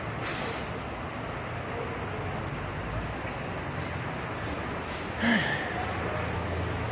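A short hiss of hand sanitizer sprayed from a hand-held spray bottle onto the hands, then a steady background hum of the store entrance. About five seconds in there is one brief, louder sound that falls in pitch.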